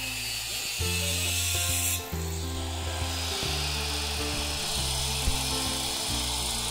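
Background music of slow, sustained low notes that change about every second, over a steady high hiss.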